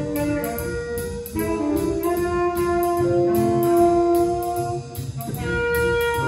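Student jazz band playing a blues: the saxophone section holds long notes in harmony, changing chords every second or two, over a drum kit keeping a steady cymbal beat.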